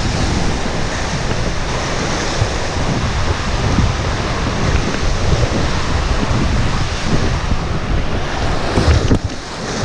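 Water rushing and churning around a round raft sliding fast down an enclosed water-slide tube, with heavy wind and water noise on the waterproof camera's microphone. Near the end the raft runs out into the splash pool, a sudden splash and then a quieter wash of water.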